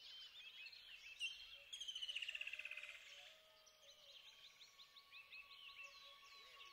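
Several birds calling, faint. A sharp chirp about a second in is followed by a rapid pulsing trill, the loudest call, then by a run of quick, evenly spaced rising chirps. A faint steady tone runs underneath from about halfway.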